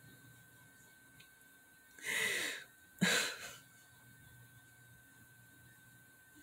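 A woman's breathy laugh through the nose: two short bursts of breath about a second apart, the second starting sharply.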